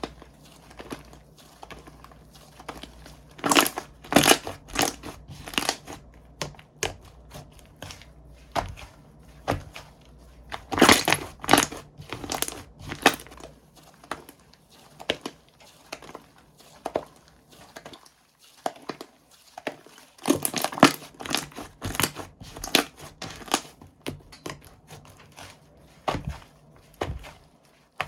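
Slime being squeezed and pressed by hand, giving irregular crunchy crackles and pops in clusters of quick strokes, with quieter scattered clicks in between.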